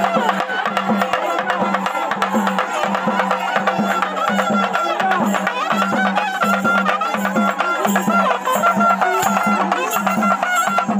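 Live traditional South Indian folk music: a long reed pipe with a flared bell plays a wavering, gliding melody over steady drum beats and sharp percussion strokes.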